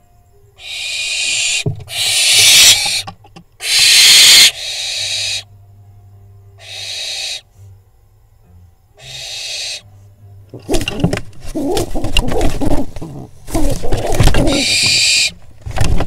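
Barn owl fledgling screeching: about six harsh, hissing screeches, each around a second long, in the first ten seconds. From about eleven seconds in, loud scuffling and wing flapping in the nest box as the owl and the nesting pigeon tussle.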